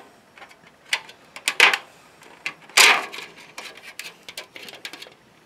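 Clear plastic pie-crust lid crackling and clicking as it is pried off the rim of a foil pie tin. A few sharp crinkles come in the first two seconds, the loudest about three seconds in, then smaller ticks.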